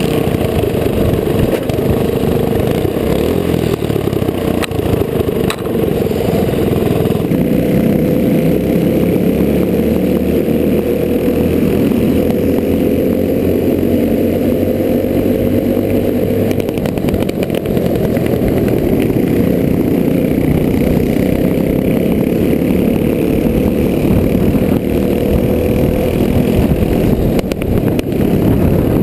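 Clone kart's single-cylinder four-stroke engine running hard under racing load, heard from onboard the kart, its pitch rising and falling in long slow sweeps as the driver works the throttle.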